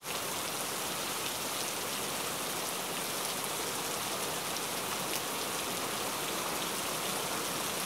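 A steady, even crackling hiss with no change in level.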